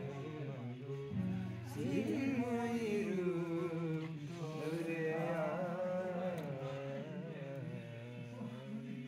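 Men singing a Bengali devotional song in long, wavering held notes over a steady low accompaniment.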